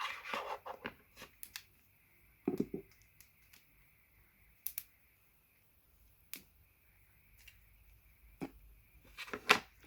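Wacky Track fidget toy, a chain of plastic links, clicking as the links are twisted: irregular clicks, a cluster at the start and another a few seconds in, the loudest near the end.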